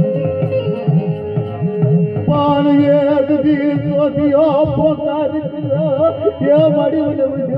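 Indian-style music with a steady tabla rhythm. About two seconds in, a melody of long wavering notes takes over from the plucked strings.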